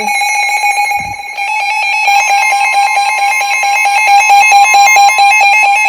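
NOAA Weather Radio alert tones, two at once: a loud, steady alarm tone with rapid pulsing over it, and a second, slightly higher steady tone that joins about four seconds in.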